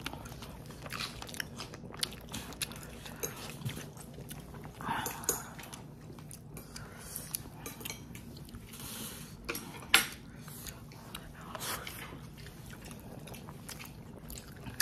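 A person eating close to the microphone: chewing and biting, with frequent small clicks of utensils against dishes. A sharp knock stands out about ten seconds in.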